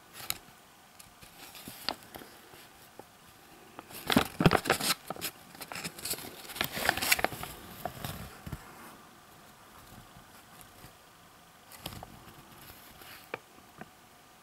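Paper instruction leaflet being handled, crinkling and rustling in uneven bursts, heaviest for a few seconds in the middle, with a few lighter crackles near the end.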